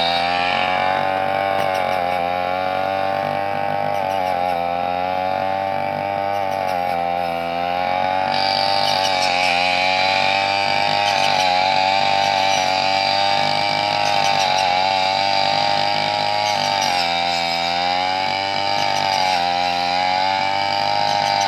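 Brush cutter's small petrol engine running at high revs, its pitch dipping and recovering again and again as the blade takes load, cutting rice stalks.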